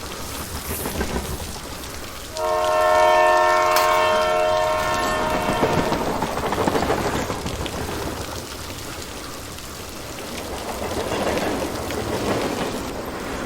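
A train horn sounds once for about two and a half seconds, a chord of several tones, then the rumbling noise of a running train swells and fades twice.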